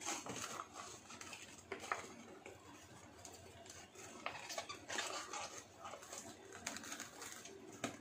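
Plastic food containers and cling film being handled while food is packed and sealed: light crinkling of plastic with scattered small clicks and knocks.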